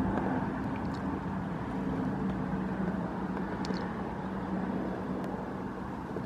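A twin-turbine helicopter flying past overhead: a steady low rotor drone with an engine hum, holding an even level, with a couple of faint ticks.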